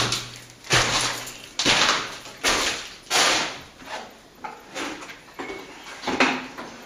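Repeated scraping strokes of a plasterer's trowel working through cornice cement, roughly one a second, the stronger ones in the first half and weaker ones after.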